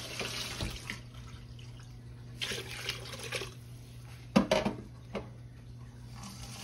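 Water splashing into a large stockpot of soup broth as it is filled, in a few short pours, with a sharp knock about four seconds in. A steady low hum runs underneath.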